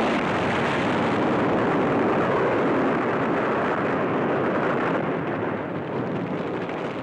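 An explosion in a film soundtrack: a loud blast of noise that starts suddenly and slowly dies away over about five seconds.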